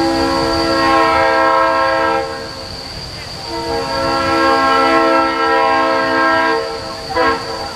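Locomotive air horn sounding a multi-note chord in two long blasts, the second starting about three and a half seconds in, then a short blast near the end. This is the long-long-short opening of a grade-crossing signal.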